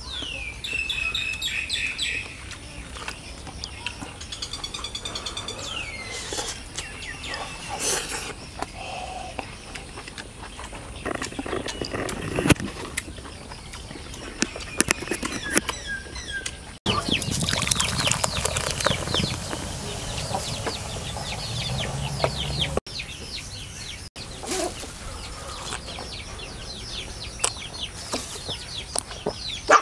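Chickens clucking and small birds chirping around a rural homestead, with close clicks and smacks from someone eating.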